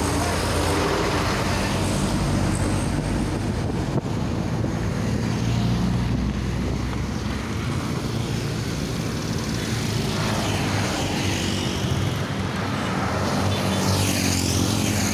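Road traffic with a heavy vehicle's engine running steadily close by, and another vehicle passing near the end.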